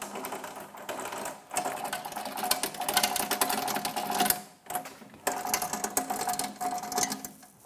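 Height crank of a Parkside planer-thicknesser being turned: the thicknessing table travels on its threaded spindles with fast ratcheting clicks and a squeak, in about four bouts with short pauses.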